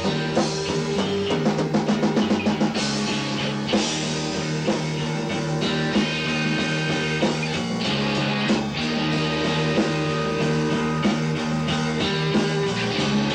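Rock music with a drum kit and guitar over held, steady notes, with a quick run of drum hits about two seconds in.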